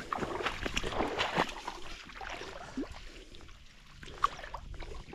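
Water splashing and lapping in uneven small bursts, with no steady rhythm.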